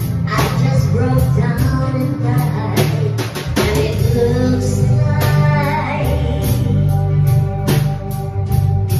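Woman singing into a microphone over band music with a steady beat, her voice amplified through the room's speakers.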